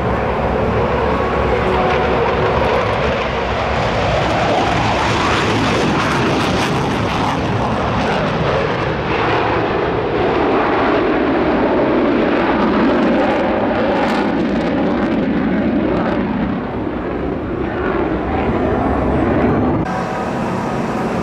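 F-15E Strike Eagle's twin turbofan engines at high power in afterburner as the jet climbs away and maneuvers: loud, continuous jet noise with crackling through the middle and a hollow tone in it that slides slowly down in pitch, then rises again near the end.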